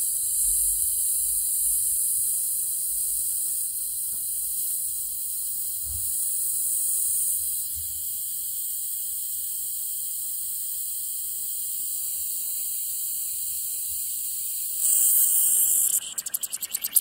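Trapped air hissing steadily out of a radiator's bleed valve, opened with a brass radiator key. The hiss gets louder about fifteen seconds in, then breaks into a rapid sputter near the end, typical of water reaching the valve once the air is out.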